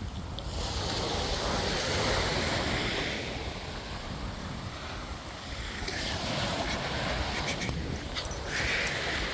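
Ocean surf washing ashore, swelling and easing, with wind buffeting the microphone.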